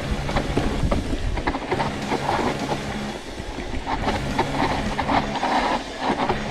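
Hardtail mountain bike rattling and clattering as it runs downhill over a rough, rocky trail, with a constant jumble of knocks from the frame and chain.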